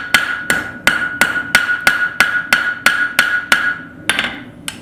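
Forging hammer striking hot steel tong stock on an anvil, a steady run of blows about three a second, each leaving a ringing tone from the anvil. The blows stop near the end, with one or two more after a short gap.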